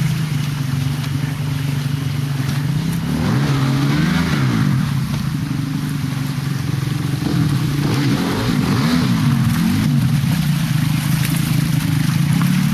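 Off-road motorcycle engine running at low revs, with the throttle blipped a few times so the pitch rises and falls, about four seconds in and again near the end.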